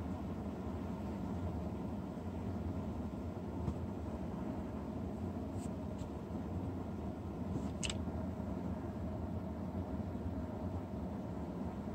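Steady low hum and hiss of background noise, with a few faint clicks, the clearest about eight seconds in.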